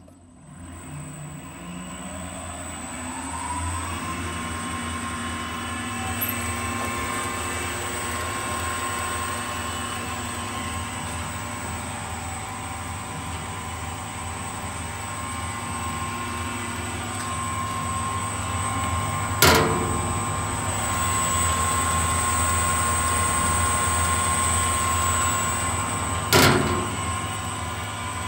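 General 260 wood lathe's motor, on a variable-speed AC drive, spinning up with a whine that rises over about three seconds, then running steadily with a steady high-pitched whine. Two sharp clicks about two-thirds through and near the end; the running sound grows a little louder after the first.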